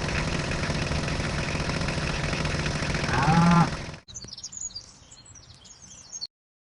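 Steady outdoor background noise with a short low call, like an animal's, a little after three seconds. It cuts off abruptly at about four seconds to a quieter stretch with faint bird chirps, and the sound stops shortly before the end.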